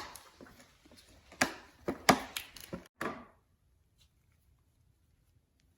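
Irregular sharp taps and knocks for about three seconds, the loudest about two seconds in, then the sound cuts off suddenly to near silence.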